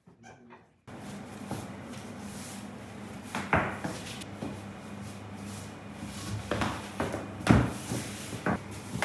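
Long wooden rolling pins rolling out thin sheets of noodle dough on a tiled table: a rolling rub with several sharp wooden knocks, the loudest about three and a half and seven and a half seconds in, over a steady low hum. The sound starts about a second in.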